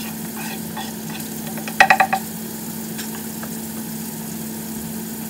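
Potatoes and mushrooms frying in oil in two pans, a quiet sizzle over a steady low hum. About two seconds in comes a quick run of four or five ringing clinks.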